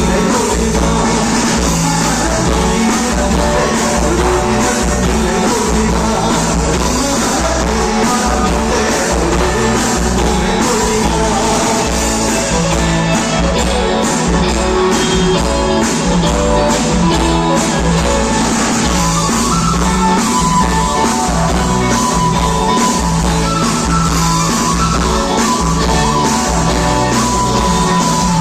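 A rock band playing live, with singing over guitar and a steady beat.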